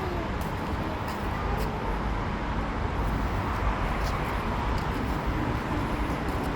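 Steady outdoor background noise with a strong low rumble and a few faint sharp clicks.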